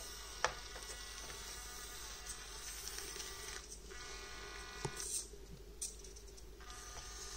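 Orlandoo Hunter OH32M02 micro RC crawler's N20 105 rpm gear motor whining as the truck drives over gravel and rocks, easing off and dropping out twice. A sharp click about half a second in, and a few more later, come from the truck knocking against the rocks.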